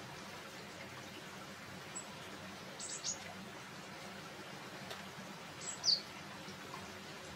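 Small bird chirping: a quick cluster of short high chirps about three seconds in and a louder chirp falling in pitch just before six seconds, over a low steady background hum.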